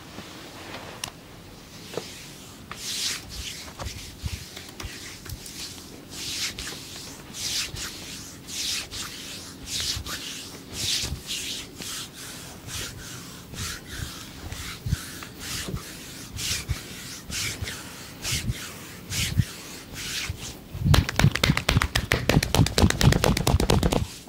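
Hands scratching over a person's body during a scratching massage, in repeated strokes, about three every two seconds. Near the end they change to a rapid run of loud slaps of the hands on the body, many a second.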